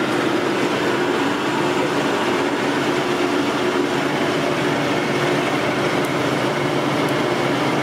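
Metal lathe running steadily, a constant machine hum with a few held tones and no change in level.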